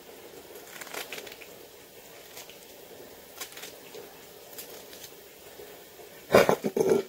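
Knife cutting cooked cabbage leaves held in the hand, with a few faint crisp cuts and crunches. Near the end comes a louder, brief burst with a voice-like pitch.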